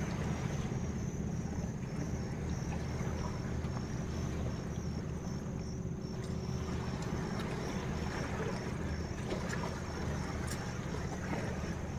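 Steady low rumble of wind buffeting the microphone, with a few faint clicks.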